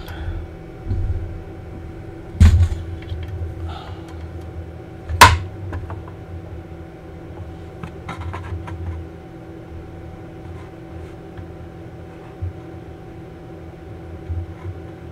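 Hands working on a motorcycle's rear drive belt and frame: scuffs and small thumps, with two sharp knocks about two and a half and five seconds in, over a steady low hum.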